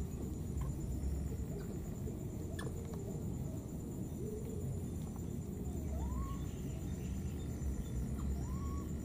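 Baby macaque giving two short rising coo calls, about six and eight and a half seconds in, over a steady low rumble and a faint steady high whine.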